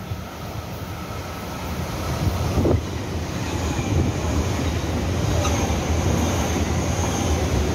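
Taiwan Railway express electric train passing a station platform at speed. It approaches with a rising rumble, a short thump comes as the front draws level, and then a steady loud rumble of wheels on rails with a high hiss runs on as the cars go by.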